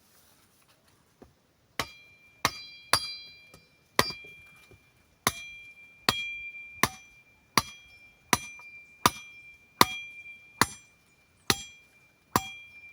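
Knife chopping through a wooden stick to cut it to length: about fourteen sharp blows, roughly three every two seconds, starting about two seconds in, each with a short metallic ring from the blade.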